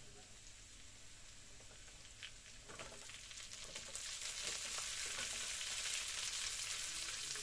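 Small whole chilies frying with onions and chili paste in oil in a wok, a steady sizzle that swells about four seconds in. A couple of light clicks of the metal spatula sound earlier.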